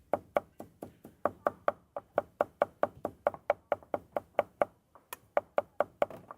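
Rapid, even knocking of a tool on a wooden work board, about four to five strikes a second, each strike with a short pitched ring.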